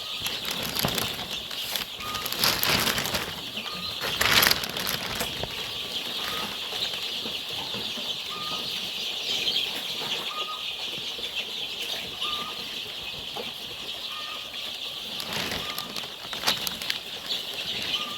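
A flock of two-week-old chicks peeping continuously, with several short bursts of wing-flapping and scuffling, the loudest about four seconds in.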